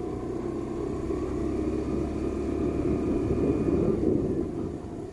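Suzuki Access 125 scooter's small single-cylinder four-stroke engine running while the scooter rides along, mixed with wind rumble on the microphone. The rumble swells a little past the middle and drops back near the end.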